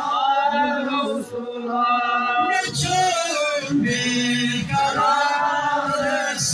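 A man singing a devotional chant into a microphone, solo voice in long, wavering, ornamented notes, with short breaks for breath between phrases.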